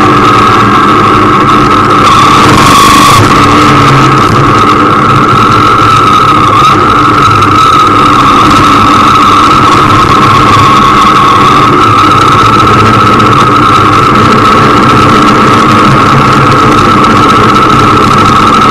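Motorcycle engine running steadily under way, heard on board with road noise, and a brief rush of noise about two seconds in.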